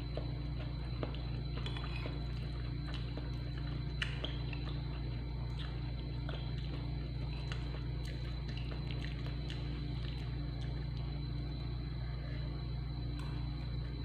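Small clicks and scrapes of a metal spoon in a bowl of rice, with eating and chewing sounds, over a steady low hum.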